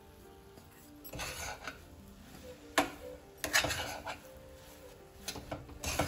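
Metal spatula scraping and knocking against a metal kadhai while mixing powdered sugar into thick semolina sheera: a few sharp scrapes and clinks, starting about a second in. Soft background music plays underneath.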